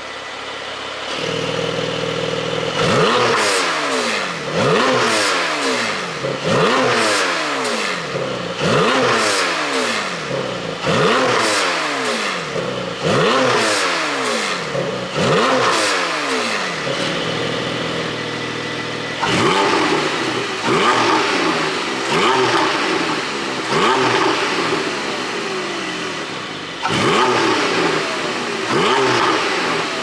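Porsche 718 Boxster GTS 4.0's flat-six engine, free-revved through a fully open exhaust in a series of quick blips, each rising sharply and falling back. It pops and crackles on each overrun from an ECU pop-and-crackle tune. It settles to a steady idle briefly between runs of blips.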